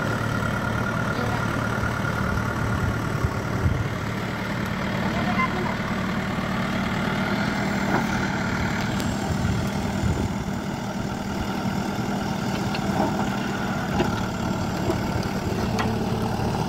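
JCB backhoe loader's diesel engine running steadily at low revs while its front loader lowers a concrete drain pipe into a trench, with a few light knocks.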